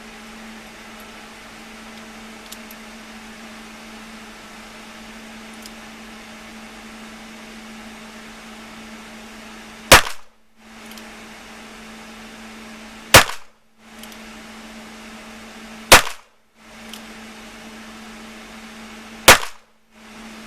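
Four single handgun shots, roughly three seconds apart, starting about ten seconds in. Each is followed by a short dropout to silence, over a steady faint hum.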